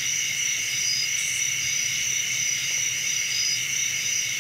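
Steady chorus of night insects, crickets among them: several overlapping high trills at different pitches, one pulsing on and off.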